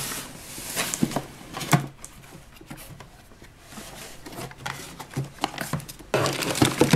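Clear plastic packaging bags crinkling and rustling in the hands as toy parts are unpacked, with light clicks of hard plastic pieces. The crinkling gets louder and denser about six seconds in.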